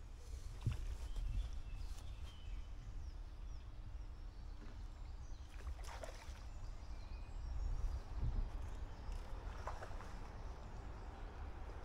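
Outdoor ambience: a steady low rumble of wind on the microphone, with a few faint, short bird chirps now and then.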